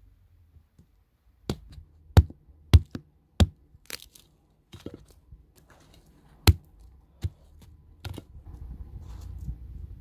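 Dry sticks cracking sharply as they are broken by gloved hands for firewood: about eight separate cracks over several seconds, then a low rustling near the end.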